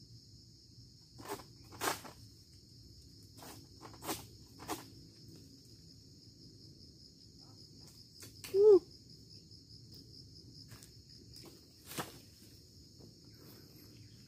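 Steady high drone of insects, with a few scattered short knocks and one short, loud pitched call with overtones about eight and a half seconds in.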